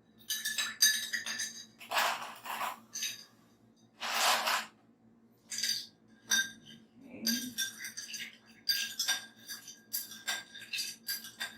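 Ice cubes dropped into a glass of coffee, clinking against the glass in a long run of sharp, ringing clinks, with two longer rattles of ice about two and four seconds in.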